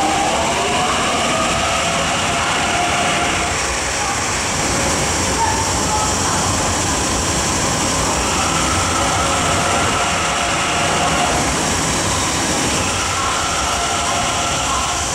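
MTR C-Train metro train running through a station platform at speed without stopping. The wheels and running gear make a steady, loud rush, and a whining tone shifts in pitch near the start and comes back in the second half.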